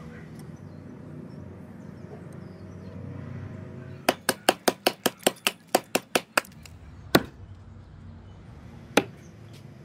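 Plumb Boy Scout axe chopping into a wooden stump: a rapid run of about a dozen sharp strikes a little after halfway, then two more single strikes, the last near the end.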